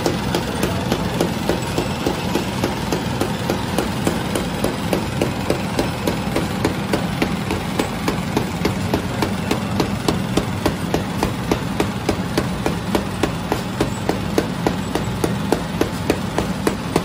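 Automatic bread-making machine running: a steady motor hum with a regular mechanical clacking, about three knocks a second.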